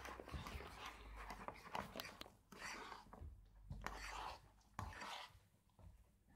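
Faint, irregular rubbing and scraping of glue-and-shaving-foam slime being mixed, with a few soft clicks.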